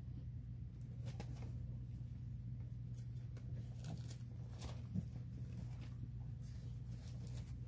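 Faint, scattered rustles and soft taps over a steady low room hum, the quiet handling noise of a pause in a small room.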